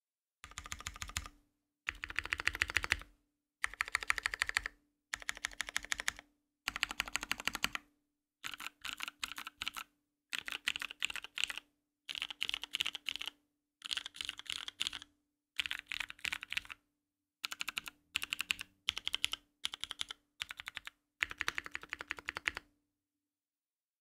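Mechanical keyboard with vintage Cherry MX Brown tactile switches, an aluminium plate and GMK keycaps being typed on in short bursts of keystrokes with brief pauses between them. The typing stops about a second before the end.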